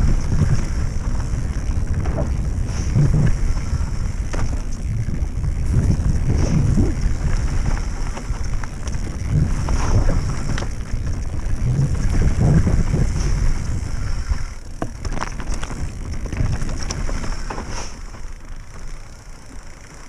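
Wind buffeting the microphone over the rattle and clatter of a mountain bike riding a rough trail, with scattered knocks. It grows quieter over the last few seconds.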